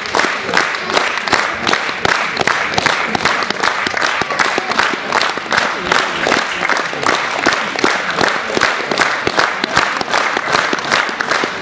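Theatre audience applauding, the many claps falling into an even, steady rhythm.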